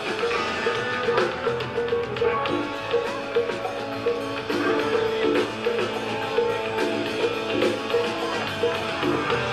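Live rock band playing: electric bass, electric guitar and drum kit in a steady groove, with a repeated short guitar figure over the beat.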